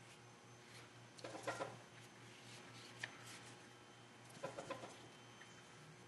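Near silence: room tone with a faint steady hum and a few brief soft sounds.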